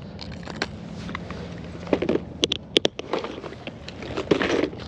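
Fishing tackle being handled and cleaned by hand: scattered light knocks and rustling, with a quick run of sharp clicks about halfway through.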